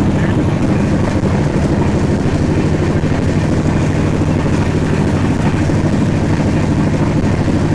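Indian Railways express train running at about 128 km/h, heard from an open coach door: a loud, steady rush of wind with wheel-on-rail noise and a low hum.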